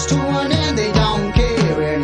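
Background music with a steady beat and a gliding melody line.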